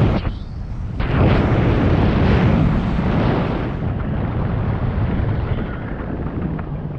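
Wind rumbling on the microphone during a downhill ski run, with the hiss and scrape of skis running over hard, tracked snow. The scraping is strongest from about one to four seconds in.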